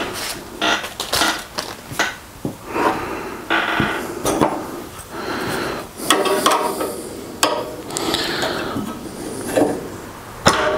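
Steel wrenches clinking and clattering as they are handled and fitted to a nut on a metal rail: many sharp metallic clicks and knocks, some briefly ringing. A thin stamped wrench knocks against the nut as it slips off.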